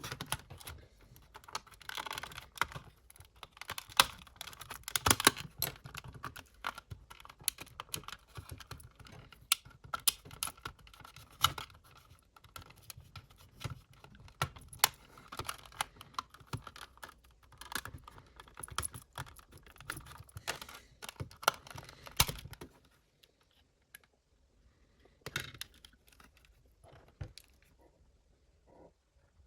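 Irregular clicking, tapping and light scraping of hands working on a cassette player's small parts. It falls much quieter about three quarters of the way through, with a few scattered clicks after.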